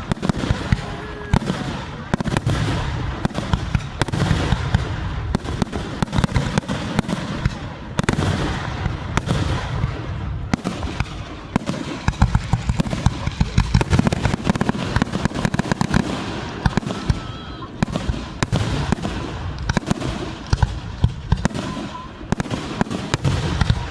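Fireworks going off in a continuous barrage: many sharp bangs and crackles a second, with a steady low rumble underneath.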